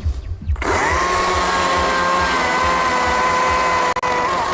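Carving chainsaw's two-stroke engine going from a low idle putter to full throttle about half a second in, rising quickly in pitch and then holding a loud, steady whine as it cuts into the wood. The whine dips briefly twice near the end.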